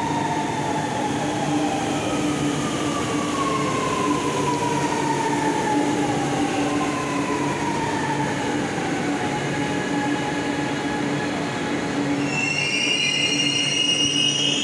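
Chennai Metro electric train pulling in and slowing: its motor whine falls steadily in pitch over a steady low hum, and about twelve seconds in a high brake squeal starts as it comes to a stop.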